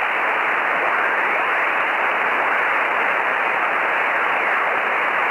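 Ham radio receiver static: a steady hiss with its upper end cut off, as in a radio's narrow voice passband, with faint whistles sliding up and down in pitch.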